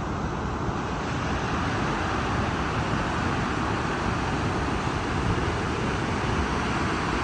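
Steady, even rushing roar of the water at Victoria Falls.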